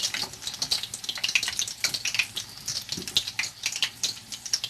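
Battered chicken pieces deep-frying in hot oil, a steady sizzle with irregular crackles.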